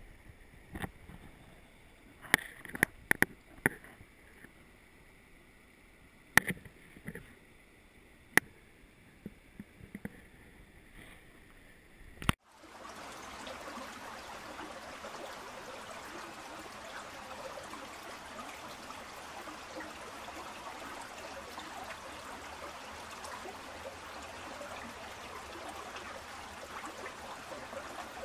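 Scattered sharp clicks and knocks of handling over a quiet background. About twelve seconds in, the steady rush of stream water starts, heard close to the water, and goes on unbroken.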